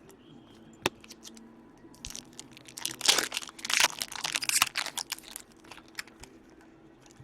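Crinkling and rustling of plastic trading-card packaging being handled, with one sharp click about a second in. The crinkling is busiest from about two to five and a half seconds in.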